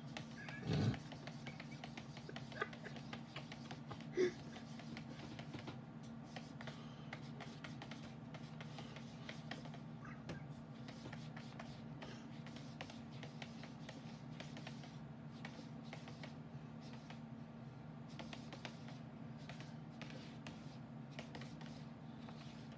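A cat's paws tapping and scratching lightly on a computer monitor screen, faint scattered ticks over a steady low hum. A short louder sound comes about a second in and a sharp tap about four seconds in.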